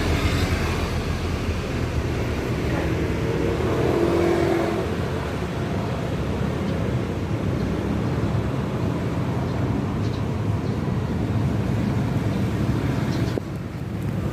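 Steady low rumble of road traffic, with the level dipping briefly near the end.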